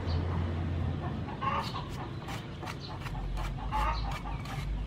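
Chickens clucking while a knife cuts and scrapes the skin off a whole palm fruit, giving a run of short sharp clicks from about a second and a half in.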